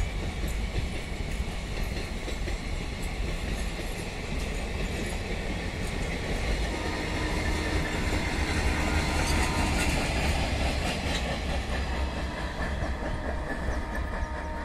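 Goods train's covered wagons rolling past, a steady rumble with the wheels clicking over rail joints. A faint thin steady whine joins in about halfway through.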